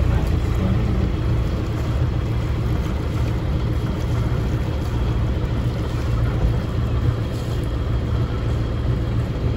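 A river motor cruiser's engine running steadily at low speed, a deep even hum, as the boat turns round on the river.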